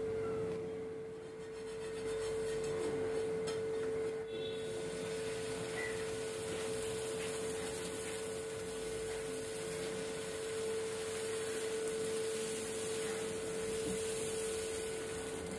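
A steady, unchanging hum on a single pitch, held throughout over a faint background hiss.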